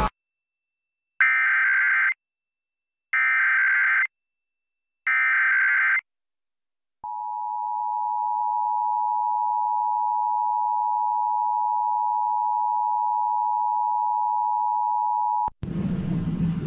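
Emergency Alert System test over FM radio. Three one-second bursts of SAME header data come about two seconds apart. Then the two-tone attention signal (853 and 960 Hz) holds steady for about eight seconds, cuts off abruptly, and an announcer's voice begins.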